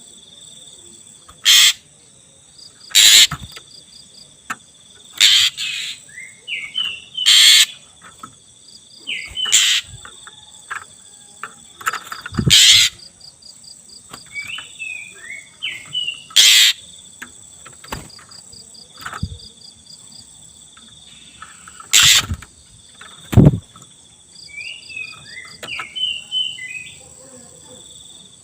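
Oriental magpie-robin of the black-breasted form singing a lure song: loud, sharp, harsh notes every second or two, mixed with little clusters of short falling whistles. Crickets chirr steadily with a pulsing trill behind it.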